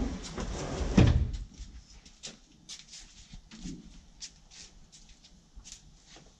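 A wooden door bangs heavily about a second in, cutting off a loud rushing noise. Then come scattered light clicks and taps in a small room.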